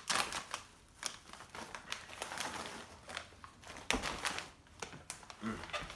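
Plastic corn-chip bag crinkling as it is handled and held up to the face, in scattered crackles, with one sharper rustle about four seconds in.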